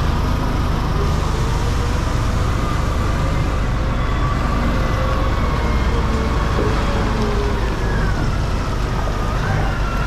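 Heavy diesel engine of a large container forklift running steadily as it drives up and lifts a shipping container, with a thin whine that wavers up and down in pitch over the low drone.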